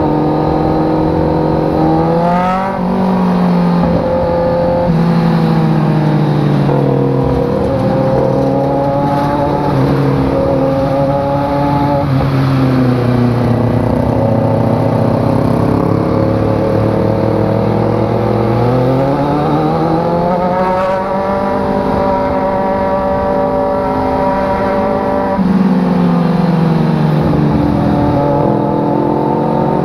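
Sport motorcycle engine running hard under way, its revs rising and falling as the throttle is worked: a quick climb and drop early on, a long slow fall through the middle, then a climb again, another drop and rise near the end.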